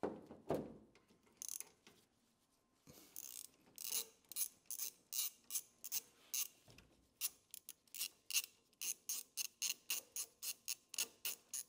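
Ratchet wrench clicking in repeated strokes as it turns a fastener on a car's suspension link joint. The clicks come steadily, about two or three a second, then quicken near the end.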